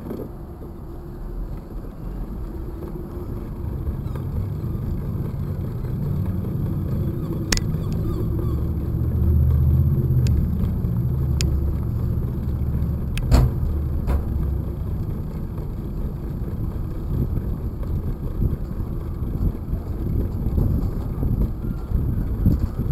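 Bicycle rolling along a city sidewalk with the low rumble of street traffic, swelling in the middle and easing off, and a few sharp clicks and rattles from the ride, the loudest about thirteen seconds in.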